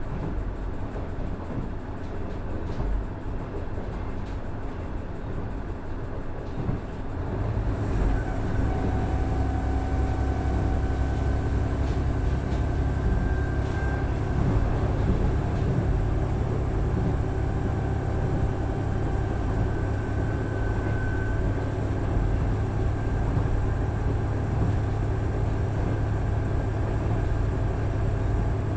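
KiHa 110 series 200-subseries diesel railcar running, its Cummins DMF14HZA diesel engine heard under the rail noise. About seven seconds in the engine comes up to power and the sound gets louder, then holds steady with a low rumble and a faint steady whine.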